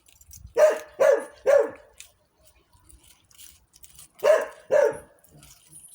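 A dog barking: three quick barks, a pause of a couple of seconds, then two more.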